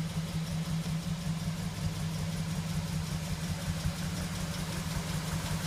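Rebuilt Ford flathead V8 with a dual-carburetor setup idling steadily.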